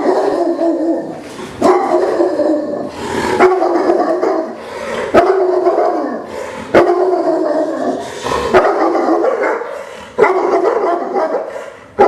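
Neapolitan Mastiff barking aggressively at a person: about seven deep, drawn-out barks, one every second and a half to two seconds.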